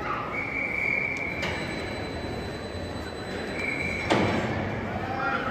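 Train moving slowly, its wheels squealing: a high steady squeal that breaks off and comes back, over a rumble, with two sharp knocks a little over two seconds apart.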